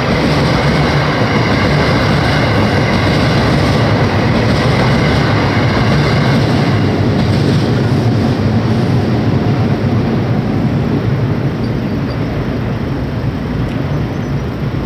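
An electric limited express train passing over a level crossing close by: a loud, continuous rush of wheel and running noise. A few steady high tones ride over it in the first half, then fade as the noise eases slightly.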